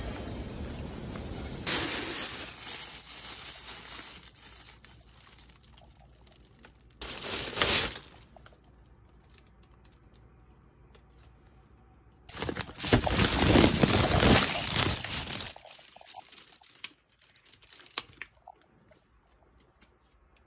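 Plastic shopping bag and food packaging crinkling in bursts as groceries are taken out, the longest and loudest burst lasting about three seconds past the middle.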